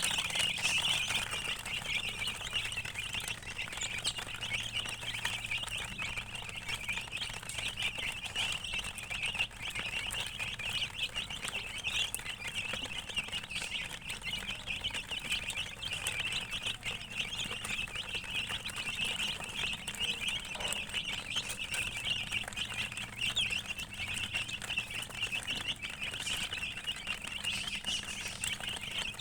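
A group of baby chicks peeping without a break, many high cheeps overlapping.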